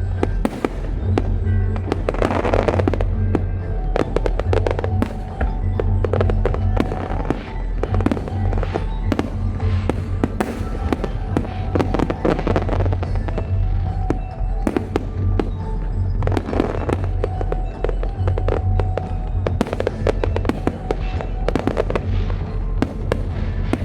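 Aerial fireworks going off in rapid succession: a continuous run of bangs and crackles over a low booming rumble, with music playing underneath.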